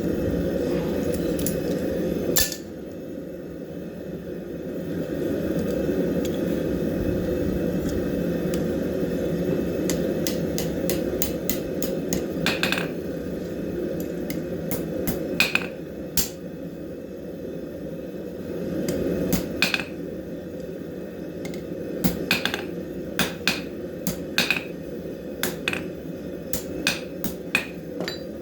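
Hammer tapping and clinking on small steel bars, scattered irregular sharp metallic strikes, more frequent in the second half, over a steady low rushing noise.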